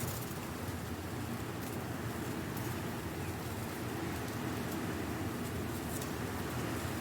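Strong wind blowing through dry leaves: a steady rumble with scattered rustles and crackles of leaves.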